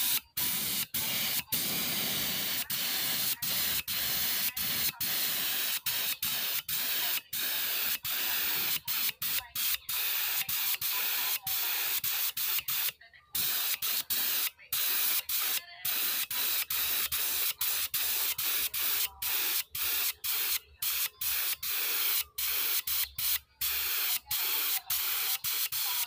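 Gravity-feed air spray gun hissing as it sprays a coat of tinted wood finish, in long bursts broken by many brief gaps.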